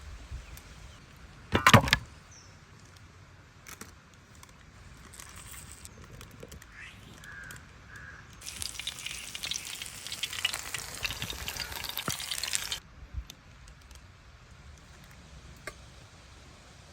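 Whole fish frying in hot oil, a dense sizzling crackle that runs for about four seconds in the second half and cuts off suddenly. A brief loud burst about one and a half seconds in, and two short calls like a crow's caw a little before the sizzling starts.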